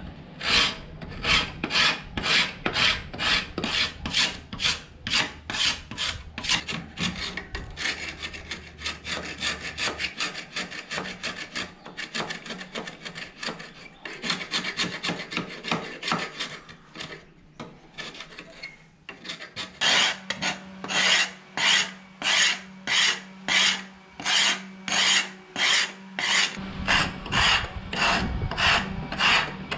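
Metal hand scraper rasping old flaking paint off the wooden rails of a baby cot in quick repeated strokes, about two to three a second, with a short pause a little past halfway.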